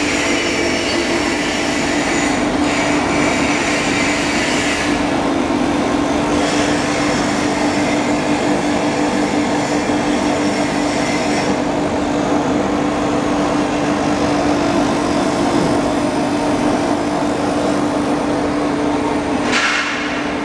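Foam-splitting machine running steadily while slicing memory foam into thin sheets: a constant hum under a hiss that grows brighter for a few seconds at a time and then eases.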